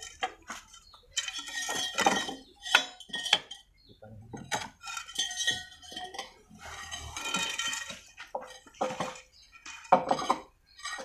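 Loose steel pipes clanking together as they are gathered up by hand: a string of sharp metal knocks, several of them ringing on, with longer rattling and scraping stretches in between.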